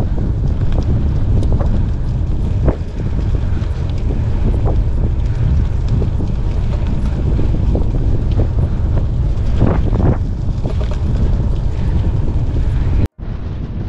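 Wind buffeting the microphone of a handlebar-mounted camera on a moving bicycle, a steady low rumble along with tyre noise on asphalt, broken by a few short knocks. The sound cuts out abruptly near the end.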